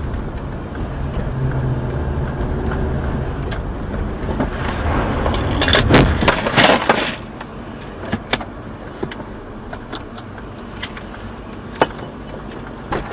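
Vehicle running with road rumble, then a crash about six seconds in: a cluster of loud impacts and breaking sounds. After it, the rumble drops and only scattered knocks and clicks remain.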